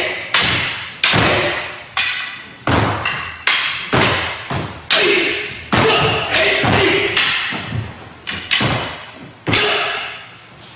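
Wooden swords (bokken) clacking together in a rapid exchange of strikes, about a dozen blows, with shouted kiai on many of them and each blow echoing in a large hall; the strikes stop about a second before the end.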